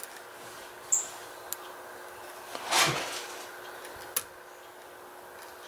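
Small clicks and light scraping from a lock pick and tension wrench working the pins of a padlock cylinder held in a deep false set, with a sharper click about four seconds in and a softer, longer brush of sound near three seconds in.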